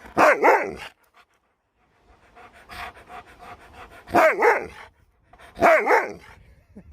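Alaskan malamute 'talking': three short woo-ing vocal bursts that bend up and down in pitch, with quick panting between the second and third.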